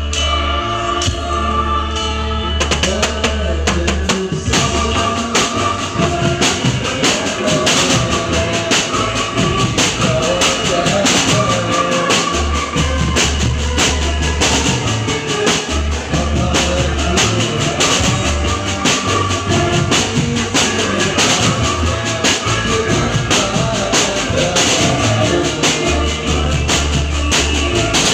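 Band music in an instrumental passage with no lead vocal: held chords over a steady bass, then a drum kit comes in a couple of seconds in and keeps a steady beat.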